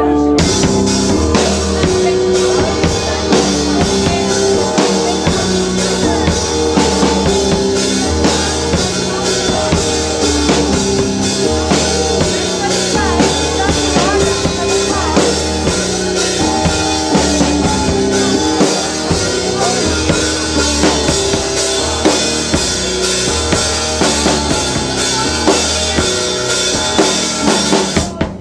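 Live band playing: a drum kit keeps a steady, busy beat on bass drum and snare over held keyboard chords and a low bass line.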